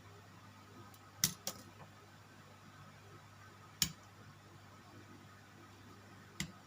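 Four sharp clicks at uneven intervals, two close together about a second in, then one in the middle and one near the end, from small plastic model-kit parts and hobby tools being handled. A faint steady hum runs beneath.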